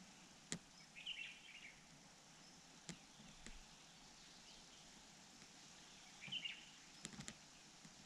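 Faint hiss with two brief, faint bird chirps, about a second in and again near six seconds, and a few sharp clicks.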